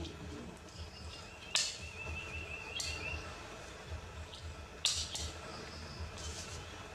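Several sharp clicks of a small hand stapler fastening a cloth diaper, with a brief high warbling chirp starting about a second and a half in.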